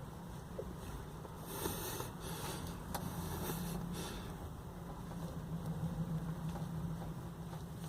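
A tire plug insertion tool being pushed into a tire puncture and twisted, giving several short hissing, rubbing bursts in the first half, over a steady low hum.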